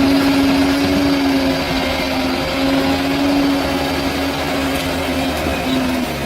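Bulldozer's diesel engine running steadily under load, with a steady whine over the engine noise.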